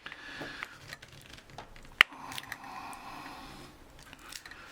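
Small metal tool prying and scraping at a glued metal plate on the back of a camera's LCD screen unit, with one sharp click about two seconds in.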